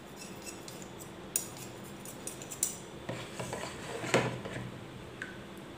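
Metal teaspoon stirring liquid in a small bowl, clinking and scraping lightly against the bowl in scattered soft clicks, the loudest about four seconds in.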